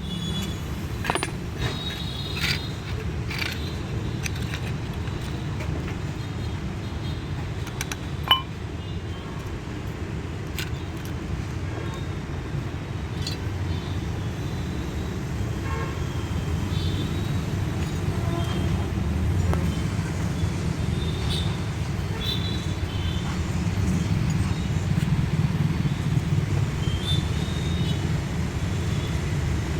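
Steady low rumble of motor-vehicle noise, with scattered small clicks and light metallic tinks over it.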